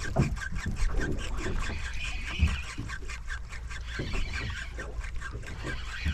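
Spinning reel ticking in an even rhythm, about five or six ticks a second, as a hooked fish is wound in, over a steady low rumble of wind and water with a few dull thumps.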